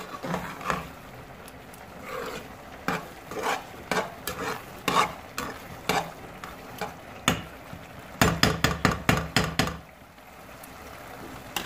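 Metal spoon stirring and scraping thick carrot halwa around a saucepan as it fries in ghee, with irregular scrapes and knocks against the pan. A quick run of strokes about eight seconds in, then only a faint sizzle near the end.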